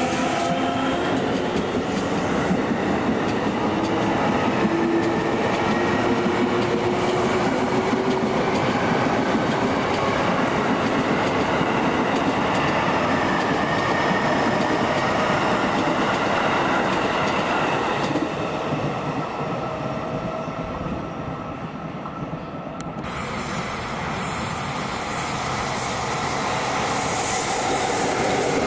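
Utsunomiya Line train running past on the station tracks: a continuous rumble and clatter of wheels on rails, with shifting whining tones in the first few seconds. The sound thins out about two-thirds of the way through, then comes back suddenly at full strength.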